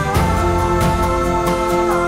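Background music: held chords that change right at the start, over a steady beat of about four strokes a second.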